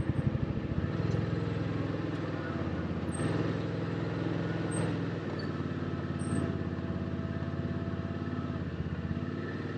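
Side-by-side UTV engine running at low trail speed. Its note rises and falls every second or two as the throttle is worked.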